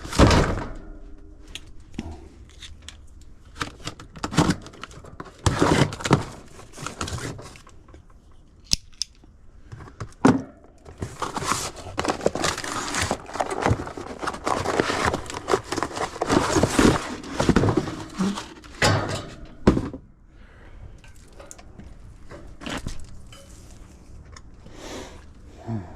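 Crinkling, rustling and tearing of packaging, with scattered clicks and knocks, as a replacement condenser fan motor is handled; the rustling is densest in the middle stretch.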